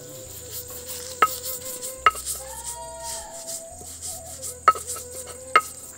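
Stone pestle crushing and grinding dry roasted flakes in a stone mortar, with four sharp knocks of stone on stone.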